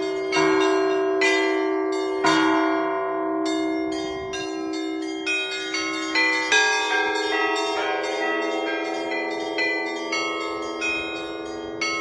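Russian Orthodox church bells rung together in a continuous peal. Larger bells hold deep, lasting tones under frequent strikes on smaller, higher bells, and the strikes come thicker from about halfway through.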